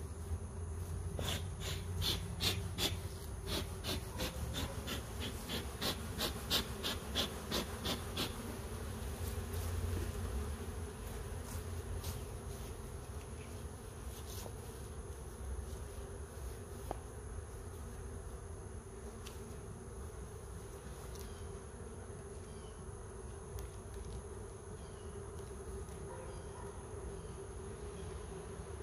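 Honeybees buzzing in a steady hum around an open hive, loud enough that the colony is signalling it wants the hive closed. For the first several seconds a quick run of sharp clicks, about three a second, sounds over the hum.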